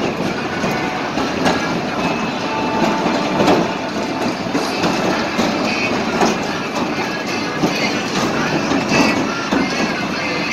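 Amusement ride running: its dome-topped cars roll around the undulating platform with a steady rumble and many small clattering knocks.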